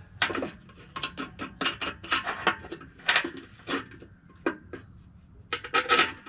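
Irregular clicks, clinks and light scrapes of metal mower-deck parts being handled while a bolt is fitted through a repaired bracket, with a louder metallic clatter near the end.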